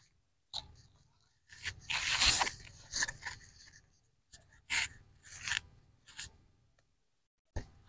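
Small plastic toy shovel scraping and scooping sand, a series of short scrapes about a second apart, the loudest about two seconds in.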